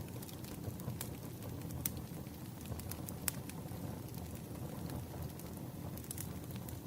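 Wood campfire burning, crackling and popping with scattered sharp pops over a steady low rumble of the flames.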